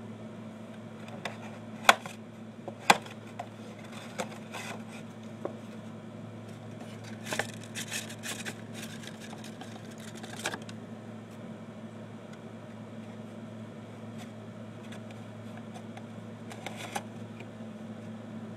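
Steady low hum with scattered sharp clicks and taps: two loud clicks about two and three seconds in, a rattly cluster of clicks around eight to ten seconds, and another click near the end.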